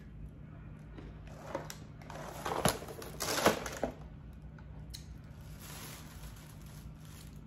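Plastic packaging of vanilla wafers crinkling and a cardboard wafer box being handled, in a few short rustles with a couple of sharp clicks around the middle and fainter rustling later. A steady low hum runs underneath.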